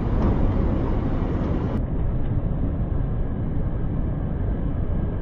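Steady low rumble of a train, with no distinct knocks or announcements.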